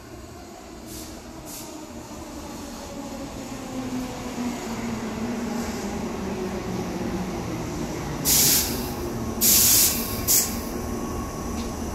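Tobu 8000-series electric train running in beside the platform, its motor and wheel noise growing louder over the first few seconds with tones that fall in pitch as it slows. About eight seconds in come three short, loud hisses of air, the second the longest.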